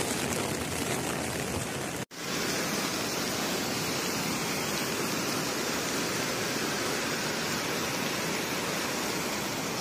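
Steady rushing roar of a muddy flash flood torrent pouring over a road. The sound drops out for an instant about two seconds in, then the same steady rush carries on.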